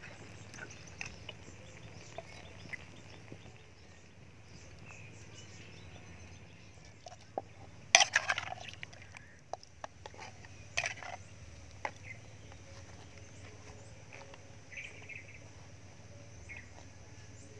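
Wooden pestle knocking in a clay mortar as chili and garlic are pounded, a burst of hits about eight seconds in and a few more near eleven and twelve seconds. Faint bird calls sound now and then over a steady low background.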